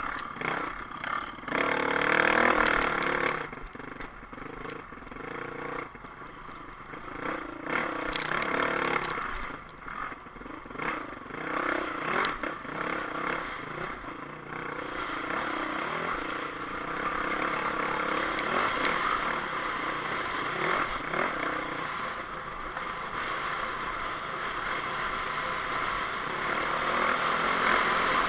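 Honda dirt bike engine heard from on board, revving up and down as it is ridden over rough, rocky single-track, with sharp clatters of rocks and the bike's chassis now and then. It settles into a steadier run in the second half.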